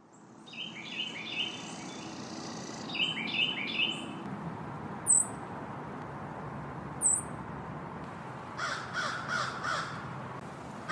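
Birds calling: quick descending chirps from small birds in the first few seconds and two thin high notes. From about nine seconds in comes a fast series of throaty notes, about five a second, from a yellow-billed cuckoo.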